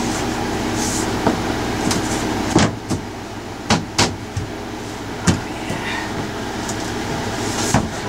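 A fiberglass hatch lid knocking and thumping several times as it is set down and pressed into place over a battery compartment, with a steady low hum underneath.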